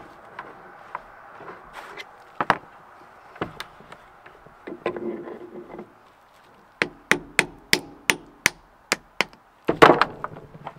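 Scattered knocks, then a quick run of about ten sharp taps at roughly four a second and a louder clatter near the end: the greased CV joint of a Porsche 944 Turbo drive axle being tapped on.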